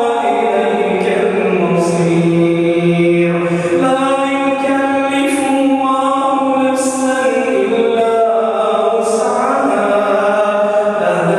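A man chanting Quran recitation solo, in long drawn-out melodic notes that slide up and down in pitch, with short breaks between phrases.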